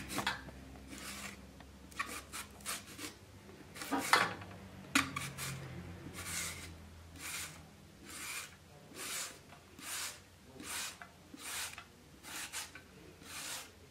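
Zucchini being shredded into strands on a hand grater: repeated rasping strokes of the blade down the vegetable, a little more than one a second in the second half, with a few sharper knocks in the first half.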